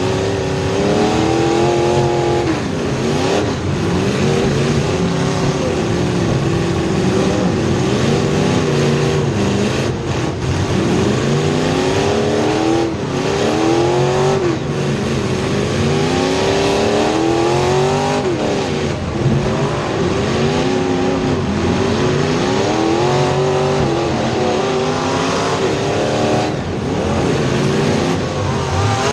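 Race car engines at racing speed, their pitch climbing hard and then dropping back again and again as the cars accelerate and lift off.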